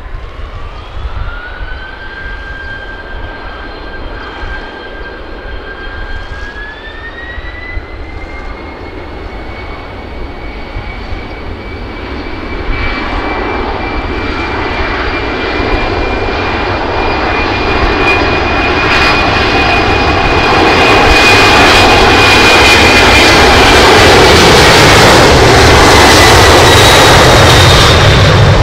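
Twin-engine jet airliner's turbofans spooling up to takeoff thrust. A whine rises in pitch over the first two seconds and steps up again about seven seconds in, then the engine noise grows steadily louder as the takeoff run builds, loudest over the last third.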